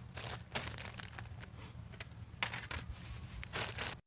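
Plastic food packaging crinkling and rustling as it is handled, in a string of short bursts.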